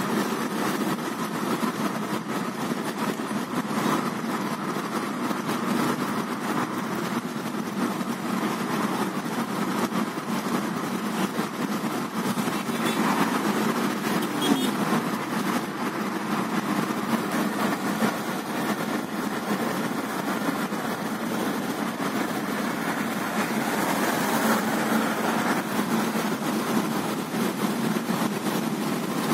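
Steady engine and tyre noise heard inside the cabin of a moving car.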